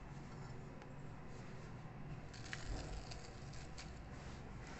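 Banana leaves rustling and crinkling as they are handled and folded into a container, with a cluster of light crackles and taps in the middle.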